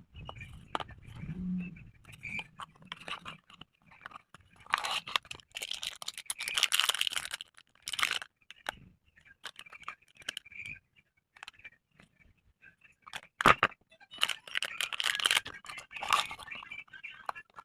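Packaging being handled and opened by hand: irregular crinkling, rustling, tearing and scraping, with a sharp click about two-thirds of the way through.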